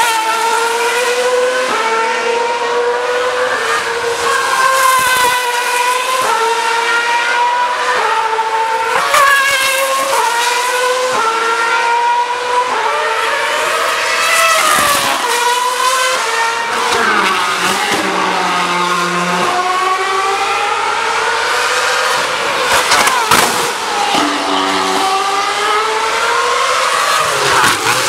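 2013 Formula 1 cars' 2.4-litre naturally aspirated V8 engines at high revs, several cars passing one after another. The pitch climbs and drops back every second or so as they shift up through the gears, and falls lower once in the second half.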